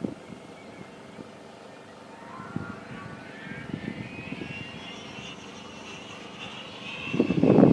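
Whine of an RC sailplane's electric motor and folding propeller, rising steadily in pitch as it winds up, then holding high. Near the end a loud, brief low rumble rises over it.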